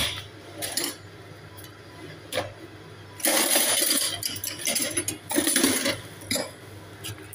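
Ceramic plates and dishes being handled on a kitchen counter: a knock at the start, then a few clinking, scraping bursts, the longest lasting about a second and a half.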